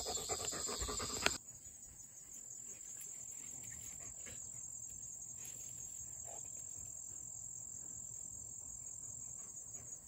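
Insects chirring in summer vegetation, a steady high-pitched drone. A louder close-up noise stops abruptly about a second and a half in, leaving the insects.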